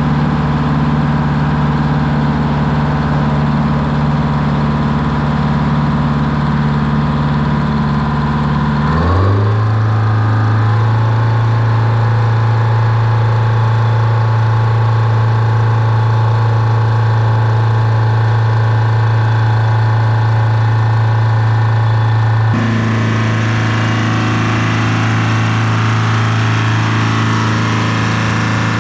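Old farm tractor engine running steadily, then speeding up to a higher, steady pitch about a third of the way in. The tone changes abruptly about three-quarters of the way through.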